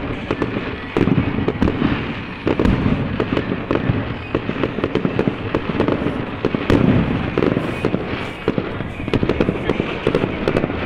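Aerial fireworks going off: a dense, continuous run of bangs and crackling.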